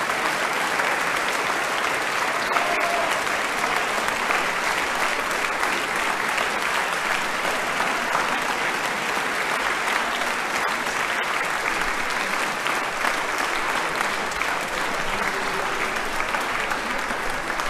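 Audience applauding steadily: dense, continuous clapping from a full concert hall.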